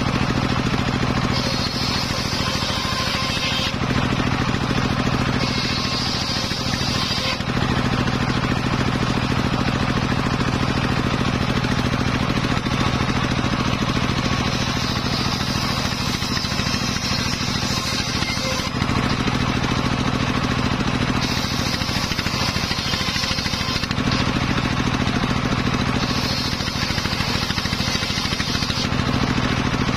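Homemade belt-driven table circular saw ripping teak boards, its engine running steadily throughout. A higher saw whine comes and goes every few seconds as the blade cuts through the wood.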